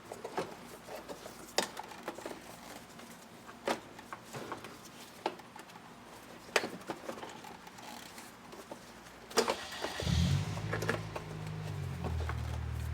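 Scattered clicks and knocks of hands and tools fitting engine parts back together. About ten seconds in, low background music starts and keeps going.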